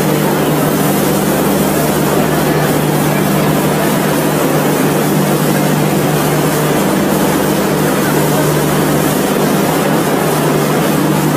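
A train in motion: an unbroken, loud rushing noise with a constant low hum underneath.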